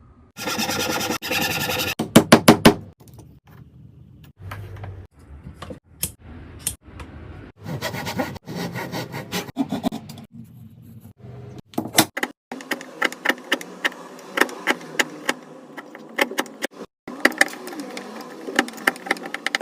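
Woodworking on scrap wood: wood scraping and rubbing, broken by sharp clicks and taps, in a run of short clips that start and stop abruptly.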